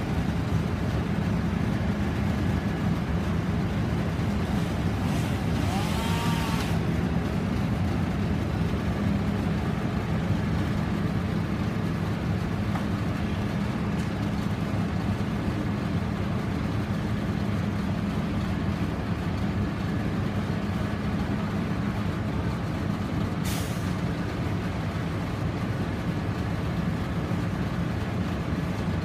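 A crane truck's engine runs steadily throughout. A short hiss with a brief squeal comes about six seconds in, and another short hiss later on.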